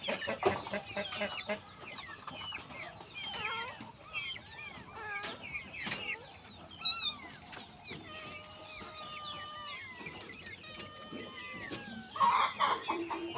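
Chicken-like clucking and short chirping calls, repeated irregularly, with one longer call held on a steady pitch a little past the middle and a louder run of calls near the end.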